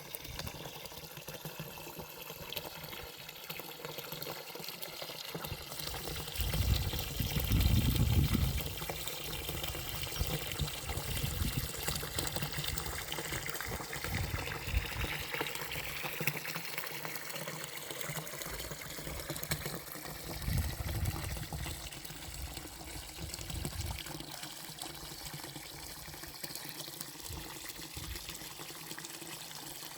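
Running water trickling steadily. A louder low rumble swells briefly about seven seconds in, and a smaller one about twenty seconds in.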